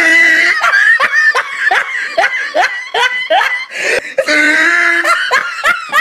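High-pitched laughter: a quick run of short falling 'ha' sounds, about three or four a second. Near the end comes a held voiced sound, then a few more short laughs.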